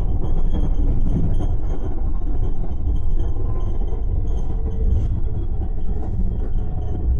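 Wuppertal Schwebebahn suspension-railway car running, a steady low rumble with a faint high whine over it.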